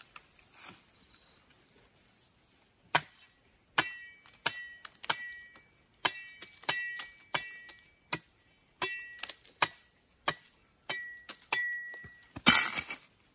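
Machete blade chopping and shaving down a length of wood held upright: a string of sharp strikes, about one or two a second, starting about three seconds in, many leaving a short high metallic ring from the blade, with the loudest blow near the end.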